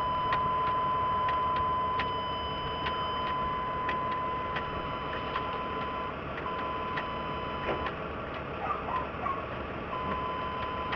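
Chevy truck's dashboard warning chime ticking steadily, a little more than one tick a second, with a steady high tone that breaks off a few times, while the ignition key is switched off and on repeatedly to prime a suspected bad fuel pump.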